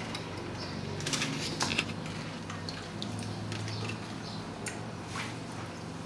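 Crinkling of a plastic packet and rustling of thin spring-roll wrapper sheets being handled, in irregular clicky bursts that are loudest about a second in. A low steady hum runs underneath.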